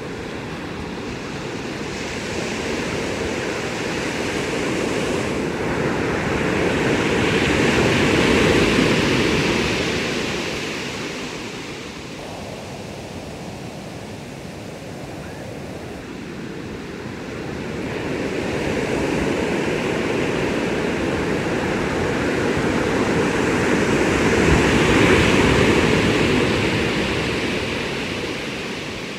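Ocean surf breaking on a sandy beach: a steady rushing wash that swells to two long peaks, about eight and twenty-five seconds in, and ebbs in between.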